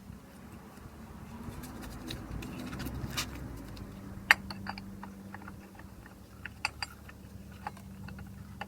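Small clicks and knocks of motorcycle drive-system parts being handled and turned over by hand, the sharpest about four seconds in, over a low steady hum and a rumble that swells and fades in the first half.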